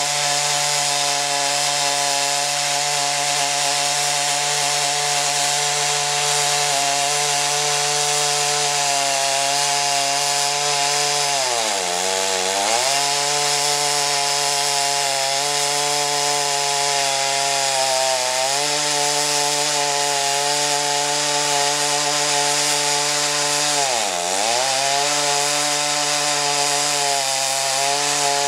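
Chainsaw in a homemade chainsaw mill running at high revs, ripping a plank from an oak log. The engine pitch holds steady but dips sharply and recovers twice, about halfway through and again near the end.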